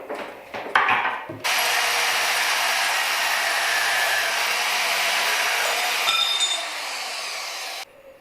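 WEN 94396 portable metal bandsaw cutting through a quarter-inch brass piece: a steady, loud grinding hiss of the blade in the metal that starts suddenly about a second and a half in, eases a little after about six seconds and stops sharply near the end. A few light handling clicks come before the cut.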